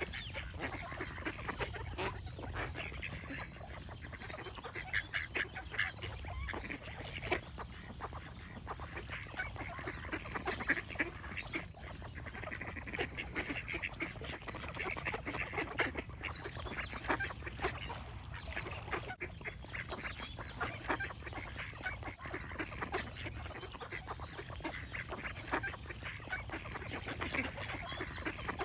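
A flock of ducks quacking and calling continuously, many short overlapping calls in quick succession.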